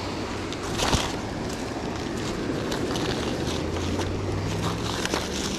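Wind blowing across the microphone, with one sharp knock about a second in and scattered light clicks. A low, steady motor hum comes in a little past halfway.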